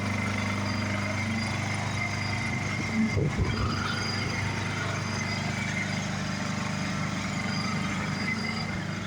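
Honda EU2000i inverter generator's small single-cylinder four-stroke engine running steadily with a constant hum and a thin high whine. A brief low bump about three seconds in.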